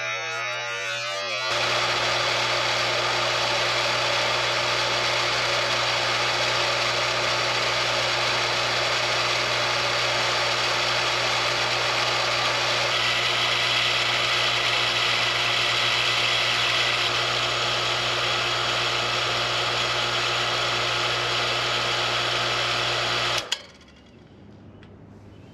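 A 3/4 HP electric water pump's motor runs steadily under load with a strong low hum, then switches off abruptly near the end.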